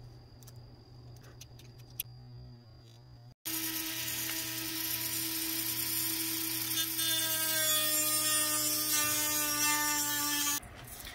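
Dremel rotary tool cutting a fiberglass laminate sheet: a steady high-pitched whine with a gritty hiss. It starts abruptly about three seconds in and cuts off just before the end, after a few faint clicks.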